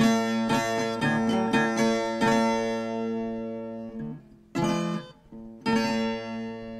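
Acoustic guitar playing the closing bars of the song. A run of plucked notes gives way to a chord left ringing and fading, then two more strummed chords a little over a second apart.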